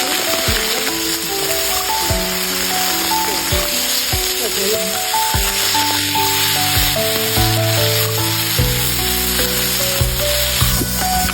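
Food sizzling steadily as it fries in a hot pan, with background music playing over it.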